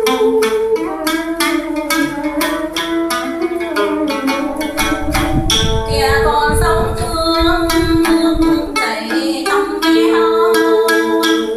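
Đàn nguyệt, the two-string Vietnamese moon lute, plucked in a chầu văn melody, with a woman singing long held notes over it and wooden clappers struck in a steady beat.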